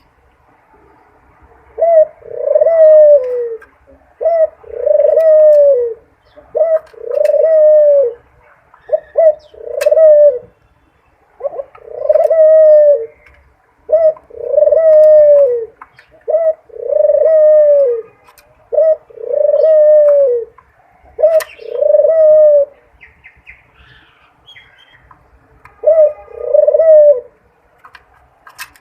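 A dove cooing in a repeated series. Each call is a short note followed by a longer coo that falls in pitch, about one every two seconds, with a pause of a few seconds before a final call near the end.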